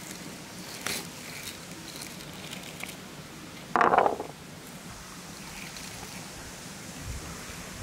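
Wooden tongs handling spiky chestnut burrs, with a few light clicks and rustles, then one louder crunching knock about four seconds in as a burr is worked open and a chestnut lands on the wooden board.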